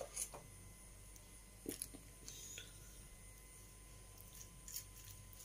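Near silence: a faint steady hum of room tone, broken by a few faint short clicks and rustles.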